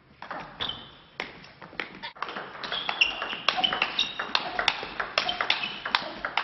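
Table tennis rally: a quick run of sharp clicks as the ball strikes bats and the table, several a second, some with a short high ringing.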